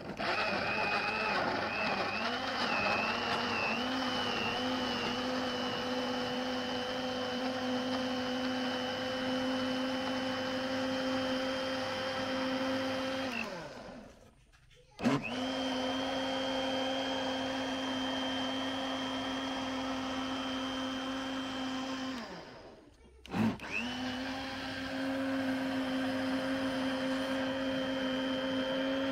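Philips countertop blender motor running steadily, its pitch wavering for the first few seconds before it settles. It is switched off twice, about halfway and again about three quarters through, winding down in pitch each time before starting up again.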